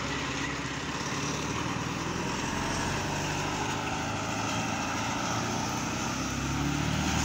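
Fire engine's diesel engine running as the truck pulls away and drives off, with tyres hissing on the wet road.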